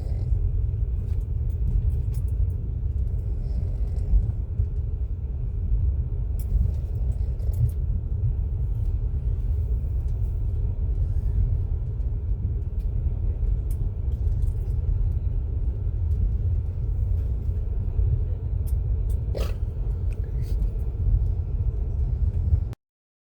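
Steady low rumble of a moving vehicle heard from inside, with a faint steady whine and scattered light clicks. It cuts off abruptly near the end.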